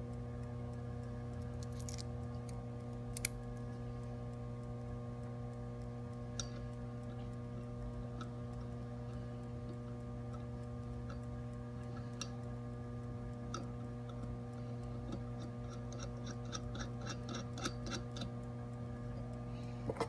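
Brass hose barb fittings being handled and screwed onto a glassblowing burner's gas inlets: scattered small metallic clicks and taps, the sharpest about three seconds in, and a quick run of clicks near the end. A steady electrical hum runs underneath.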